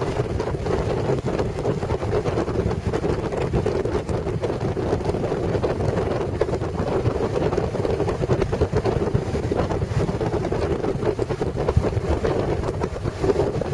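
Motorcycle riding along at steady speed: wind rushing over the microphone over the engine's constant drone.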